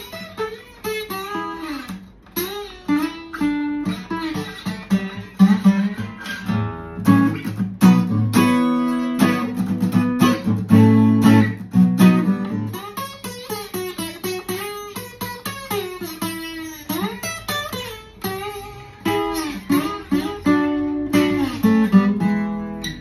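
Steel-string acoustic guitar played solo, mixing ordinary fretted notes and strummed chords with notes slid on a small ring-finger slide (Dunlop Shy Slide). Several notes glide up and down in pitch.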